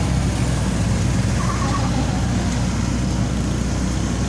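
Diesel engine of an excavator running steadily, a continuous low hum.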